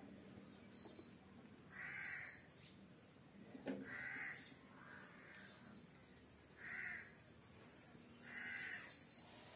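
A crow cawing four times, one short caw about every two seconds, with a single sharp click just before the second caw.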